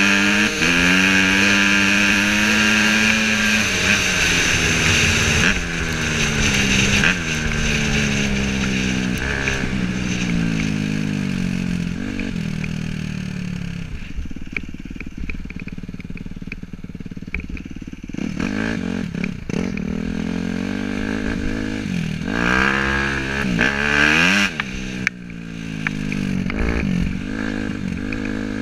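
Suzuki RM-Z250 four-stroke single-cylinder dirt bike engine under riding, the revs climbing and dropping over and over as the throttle opens and closes through the gears. About halfway through it eases off to a quieter low running for a few seconds, then revs hard again. A second dirt bike runs alongside in the first few seconds.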